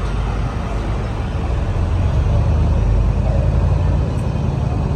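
Low engine rumble of road traffic, a heavy vehicle running close by and growing louder about two seconds in.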